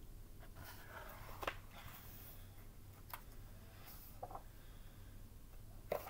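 Faint rustling and a few light taps as a large hardcover picture book is lowered and handled, over a low steady hum.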